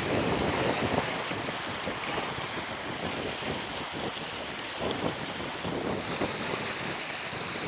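Steady rush of running water with wind buffeting the microphone.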